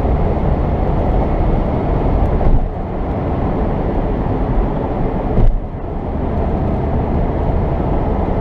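Steady road and engine noise of a moving car at highway speed. The noise swells briefly about two and a half and five and a half seconds in, and each swell is followed by a short dip.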